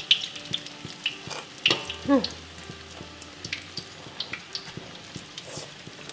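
Food sizzling and crackling in hot oil in a pan, with the clicks and scrapes of stirring.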